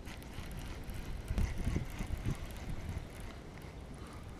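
Wind buffeting the microphone, a steady low rumble, with a few faint knocks in the middle.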